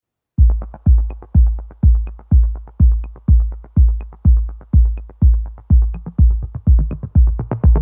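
Electronic dance music: a steady kick drum about twice a second with fast hi-hat ticks between, starting about half a second in.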